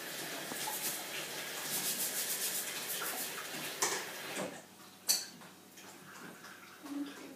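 Kitchen work at the counter: running water with light clattering of dishes and cutlery. The running stops about four and a half seconds in, and a single sharp clink follows.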